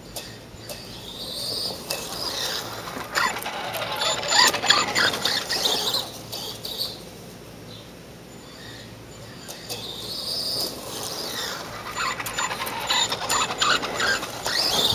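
Tamiya TLT-1 Rockbuster RC monster truck's electric motor and gear drive whining as the truck is driven across grass. It comes in two spells, the first starting about two seconds in and the second from about ten seconds in.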